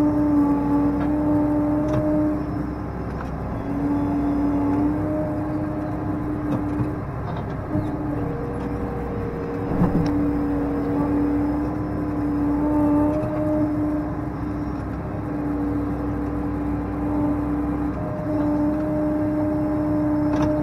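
Case IH tractor engine running under load, heard from inside the cab, with a steady whine that drops out and comes back several times. A single thump about halfway through.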